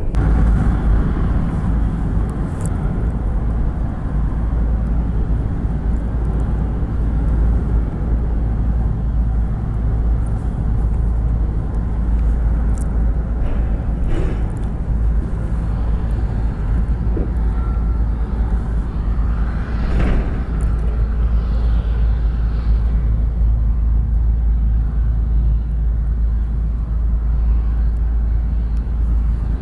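Steady low rumble of wind buffeting the microphone, with a faint hum underneath.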